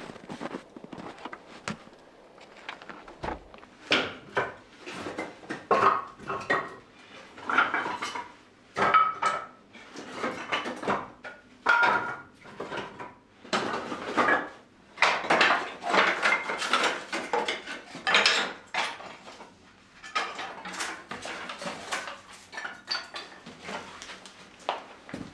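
Dishes, pots and other kitchenware clinking and clattering as they are handled, a long irregular run of knocks and short ringing clanks.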